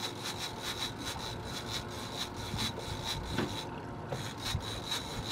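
Fishing reel being cranked, a steady rasping tick about five times a second.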